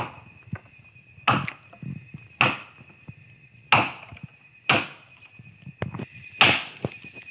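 Machete chopping into bamboo: about six sharp hacks, a second or so apart, each with a short woody crack.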